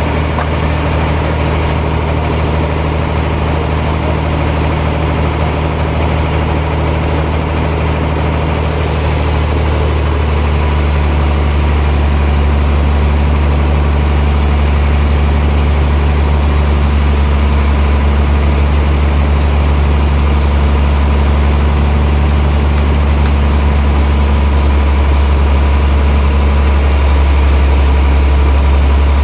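Heavy sawmill machinery running, a steady low engine hum that holds throughout. The higher sounds shift about eight and a half seconds in.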